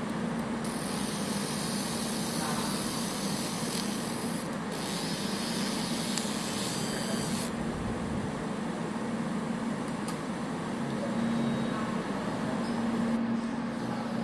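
Fiber laser marking machine running with a steady low hum. A high hiss from the laser marking a micro SD card sets in about half a second in and stops about halfway through.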